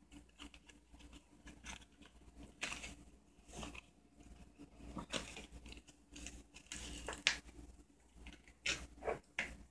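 Knife and gloved fingers cutting and peeling at the foam surround around the rim of a speaker cone: faint irregular scraping and tearing with scattered small clicks.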